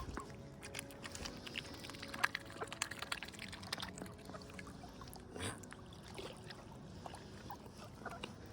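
A swan feeding in shallow water, its bill dabbling and sifting at the surface: faint, irregular small splashes, trickles and wet clicks.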